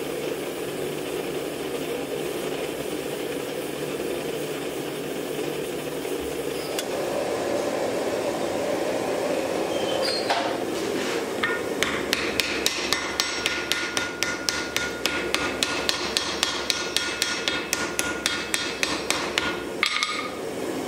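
Steady rushing noise of a gas forge for about the first ten seconds. Then a hand hammer strikes a glowing hewing-axe head on the anvil, one blow about ten seconds in, followed by a fast run of blows at about four a second, with the anvil ringing.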